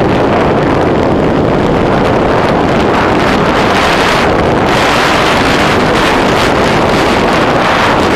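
Steady, loud rush of wind on the microphone of a camera riding on a mountain bike descending a paved road at speed, the highs briefly thinning about four seconds in.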